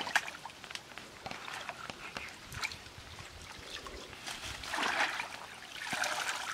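Feet wading and splashing through shallow muddy water, with small splashes throughout and louder sloshing about five and six seconds in.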